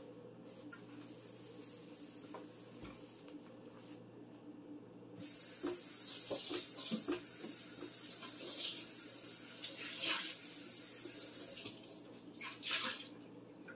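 Kitchen sink tap running with water splashing, turned on about five seconds in and shut off near the end, with a short extra gush just after.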